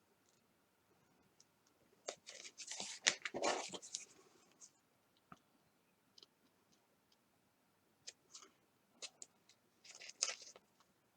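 Seam ripper piercing and slitting fabric for magnetic snap prongs: two short bouts of faint scratchy cutting, about two seconds in and again near the end, with a few light clicks between them.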